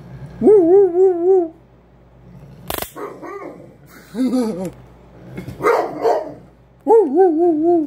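A dog making long, warbling, howl-like whines and shorter grumbling yelps, the 'talking' of a dog upset by a taser being shown to him. Two long wavering calls open and close the run, and a single sharp snap comes about three seconds in.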